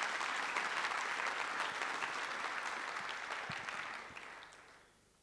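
Audience applauding, fading away about four to five seconds in.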